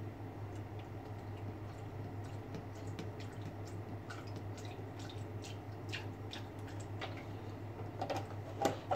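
Milk poured from a carton into a blender jar of fruit: a soft, steady trickle with faint drips and ticks, over a low steady hum. A couple of louder knocks near the end.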